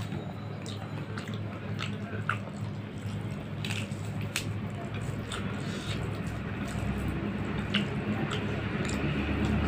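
Bare hand mixing rice with curry on a plate, with wet squishing and scattered small clicks over a steady low hum.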